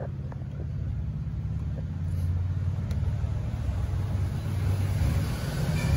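A steady low engine rumble, typical of a vehicle idling in the workshop, growing slightly louder a couple of seconds in, with a couple of faint clicks as the reservoir's hose clip is handled.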